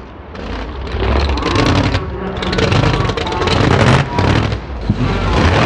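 Mega mud truck's engine revving hard through a jump off a tabletop, swelling after the first second and rising and falling with the throttle.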